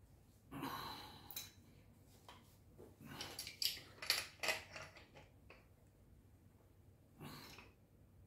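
Brass pipe fittings being handled and assembled by hand: a rustle about half a second in, a run of light clicks and taps in the middle, and another rustle near the end.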